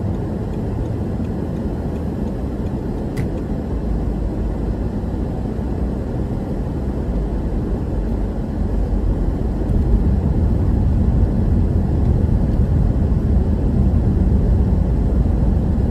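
Road and engine noise heard inside a moving car: a steady low rumble of tyres and engine, growing louder about ten seconds in.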